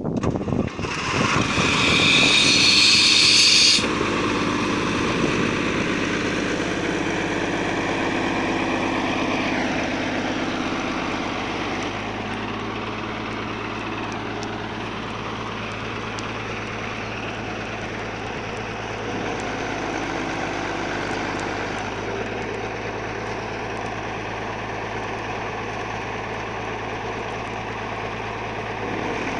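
A compressor running steadily with a constant low hum. A loud hiss about a second in lasts some three seconds and is the loudest part.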